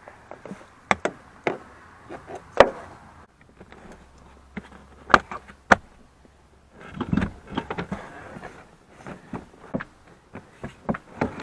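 Plastic wiring-harness connectors under a Dodge Ram's driver's seat being unlatched and pulled apart by hand: a series of sharp plastic clicks and snaps, with the rustle of the harness being handled about seven seconds in and more quick clicks near the end.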